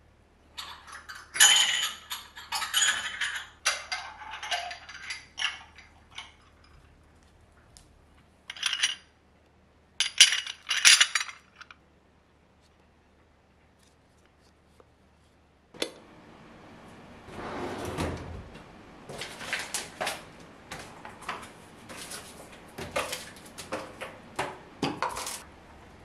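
Household storage baskets and containers being pulled out of a kitchen cabinet and handled: bursts of clattering, knocking and rustling, with a quiet spell partway through, then a run of lighter knocks and rustles.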